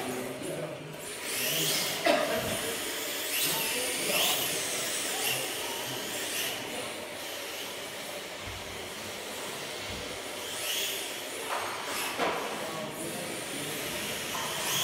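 Electric RC drift cars running laps on a smooth indoor track: a high motor whine that rises and falls as the cars accelerate through the corners and pass, over a steady hiss of tyres sliding. A sharp knock about two seconds in.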